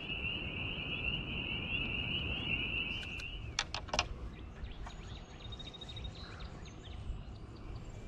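Outdoor ambience with a steady high-pitched calling chorus over a low rumble, cutting off about three and a half seconds in. A few sharp clicks follow, then quieter streamside ambience with faint bird chirps.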